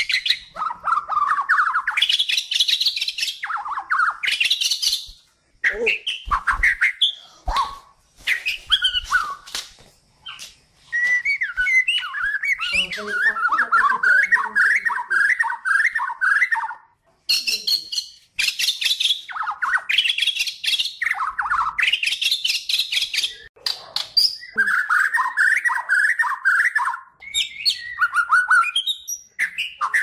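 A Kalimantan white-rumped shama (murai batu) in full song: a continuous string of varied phrases, with clear whistles, fast trills and rapid chattering runs, broken by short pauses.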